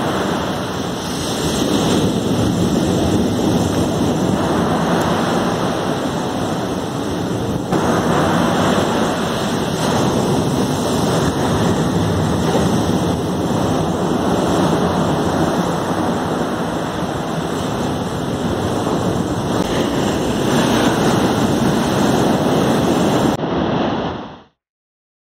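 Surf breaking on a beach with wind buffeting the microphone: a loud, steady rush of noise that cuts off near the end.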